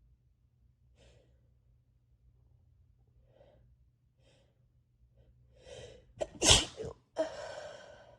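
A woman with a head cold sneezing: a few short catching breaths build up to one sharp, loud sneeze about six and a half seconds in, followed by a voiced breath out.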